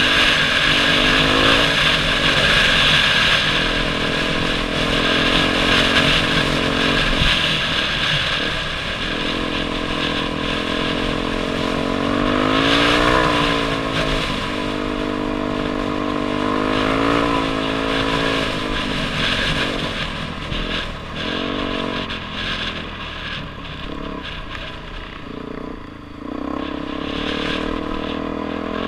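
Dirt bike engine running under way on a gravel trail. Its pitch rises and falls with the throttle and gear changes, with one clear rev up and back down about halfway through, over a steady rushing noise.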